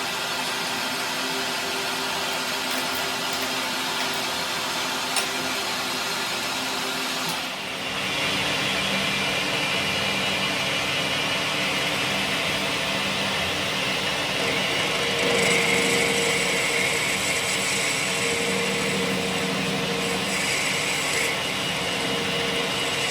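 A workshop power machine running steadily. About seven and a half seconds in, its sound shifts and grows a little louder, and a higher note comes in around the middle and again near the end.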